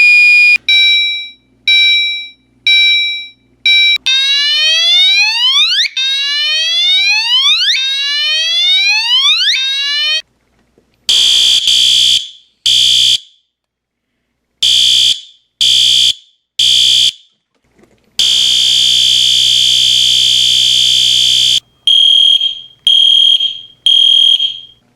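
Fire alarm signalling devices sound one after another, each with its own tone. First a steady electronic tone, then four short beeps. Next comes a repeating upward-sweeping whoop, then horn blasts in uneven bursts, one long continuous blast of about three seconds, and finally three short blasts in a row.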